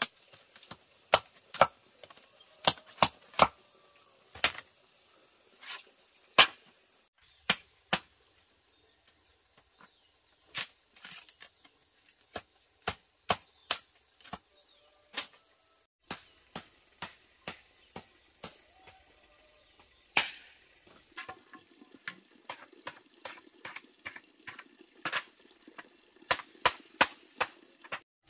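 Machete blade chopping and splitting bamboo: a run of sharp, irregular knocks, over a steady high insect drone that stops about three-quarters of the way through.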